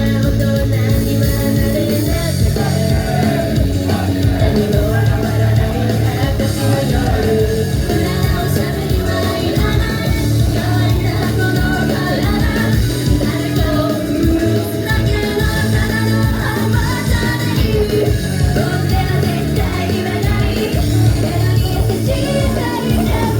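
Japanese idol group singing live over a loud backing track with a heavy, steady drum beat.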